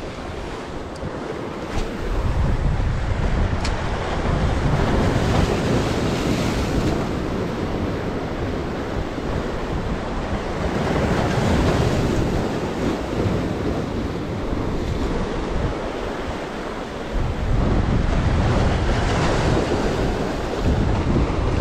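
Sea waves breaking and washing among the concrete tetrapod blocks of a breakwater, swelling a few times as sets come in, with wind buffeting the microphone in low rumbling gusts.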